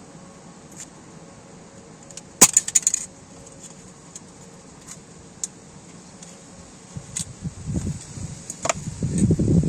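A brief metallic clicking rattle about two and a half seconds in, then wind buffeting the microphone, growing stronger near the end.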